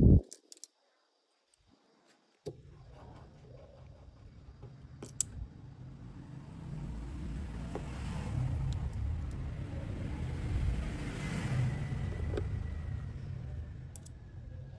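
A sharp knock at the very start, then a moment of dead silence. After that a low road-vehicle rumble swells over several seconds and fades again near the end, like a car passing by, with a few small clicks over it.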